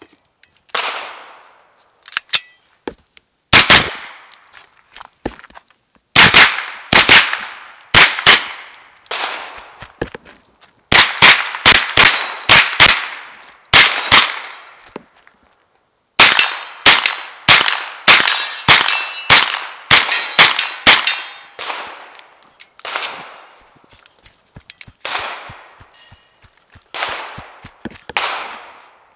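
A JP GMR-13 9mm pistol-caliber carbine firing in quick strings of shots with short pauses between them. Each string is followed by the ring of steel targets being hit.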